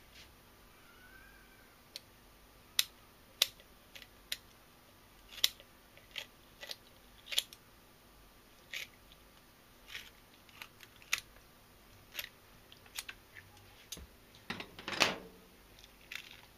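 Kitchen scissors snipping through a young yellowtail (inada) to cut away its head and guts: sharp, irregular clicks about once a second, with a longer, louder one about fifteen seconds in.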